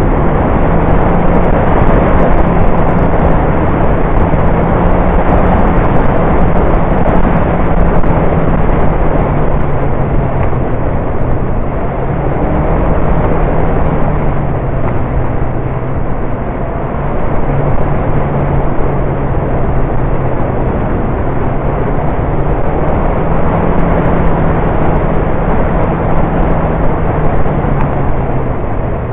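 Motorcycle engine running steadily on a downhill ride, its note stepping between two pitches a few times, under a heavy rush of wind on a fairing-mounted action camera's microphone.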